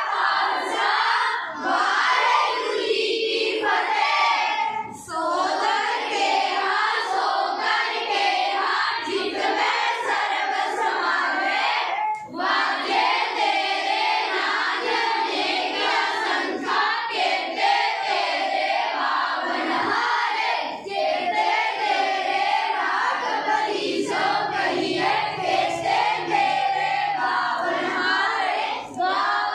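A group of schoolchildren singing a Sikh hymn (gurbani) together in unison, with short breaks between lines.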